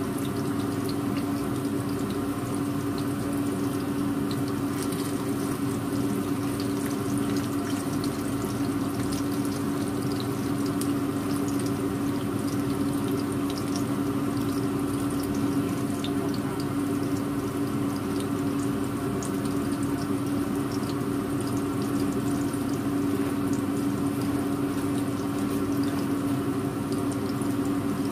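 Battered fish frying in oil in a wok over a low flame: a steady sizzle with faint scattered crackles, over a constant low hum.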